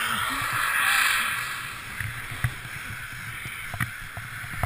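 Skis hissing and scraping over snow while skiing downhill, with wind buffeting the body-mounted camera's microphone. The hiss swells about a second in and then eases, with scattered clicks and knocks after that.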